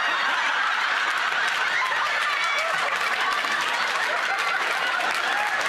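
Studio audience laughing steadily, a dense crowd laugh without a break.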